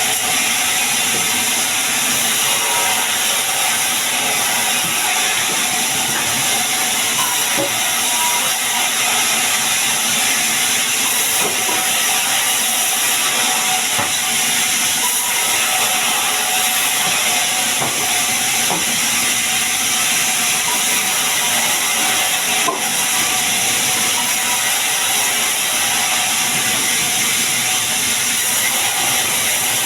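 Sawmill saw running steadily through sengon wood, a continuous loud hiss of the blade cutting.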